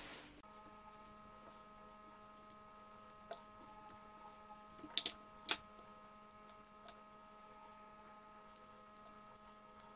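Faint steady hum of several fixed tones, with scattered soft ticks and two sharper clicks about half a second apart near the middle.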